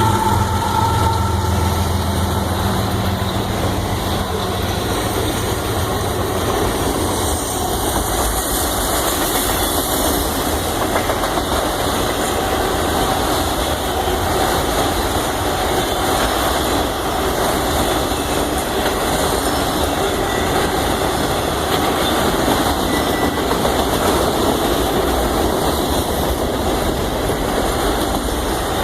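Union Pacific locomotive horn chord cutting off about a second in, followed by the steady rumble and rolling noise of the train running past.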